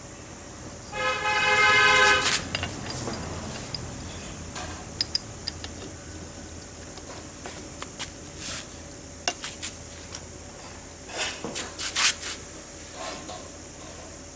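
A horn-like tone about a second in, held for just over a second and then stopping, followed by scattered light metal clicks and taps as air-compressor piston and cylinder parts are handled and fitted.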